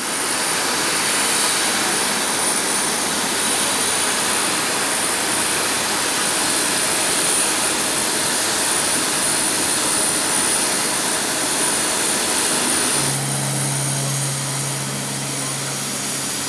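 Steady jet-turbine whine over a rushing noise on an airliner ramp. About 13 seconds in the sound changes: the high whine drops away and a low steady hum comes in.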